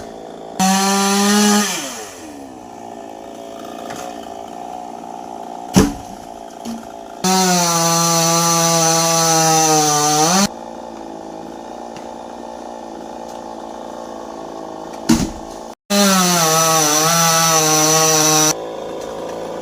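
A two-stroke chainsaw, throttled up to full speed three times, for about one, three and two and a half seconds. It drops back to a lower steady running between the bursts. There are a couple of sharp knocks in the quieter stretches.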